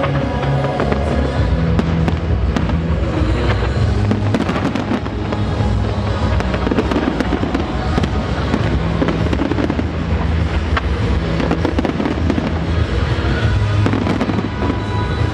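A big aerial fireworks display: dense, rapid bangs and crackling bursts going off continuously, over loud music with held bass notes.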